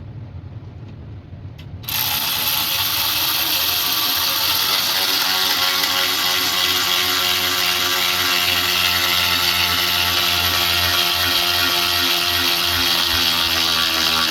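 A cordless power tool's motor switches on about two seconds in and runs continuously with a steady whine.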